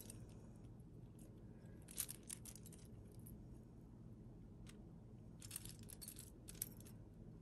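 Faint clinks and light jingling of a vintage metal link bracelet with mother-of-pearl panels being turned over in the hands, in a few short clusters about two seconds in and again between five and seven seconds.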